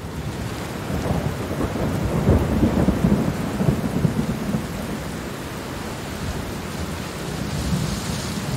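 Heavy rain with rolling thunder, fading in at the start, the rumble strongest about two to four seconds in.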